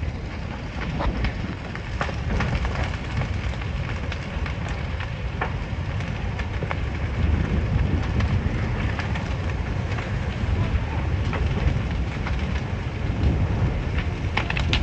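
Large wooden barn fire burning fully engulfed: a steady low rumble of the flames with constant crackling and popping of burning timber.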